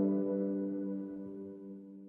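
Calm piano background music ending: the last chord rings on and slowly fades away.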